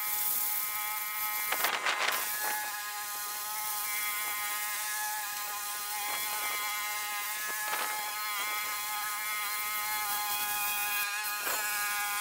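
Water spraying from a wand down through an air-conditioner condenser coil: a steady hiss with a buzzing whine, rinsing cleaner out of the fins.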